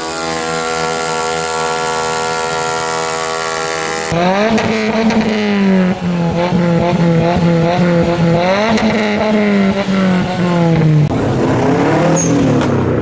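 A car engine revving hard, its pitch rising and dropping several times, as a modified car pulls away. Before it, for the first four seconds, there is a steady droning tone that stops suddenly.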